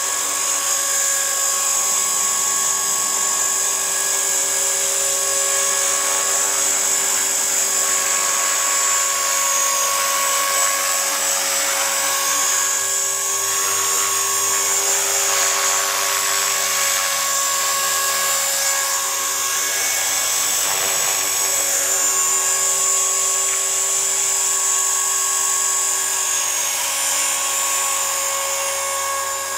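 EXI 450 SE electric RC helicopter in flight: the high-pitched whine of its motor and gearing over the whir of the rotor blades, steady with small wavers in pitch as it hovers and manoeuvres.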